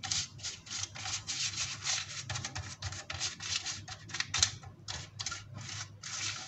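Silicone pastry brush rubbing oil over the paper lining of a round metal baking tin, a quick run of scratchy back-and-forth strokes, several a second.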